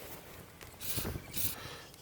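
Aerosol chain lube sprayed onto an ATV drive chain: two short hisses, the first just under a second in and the second about half a second later.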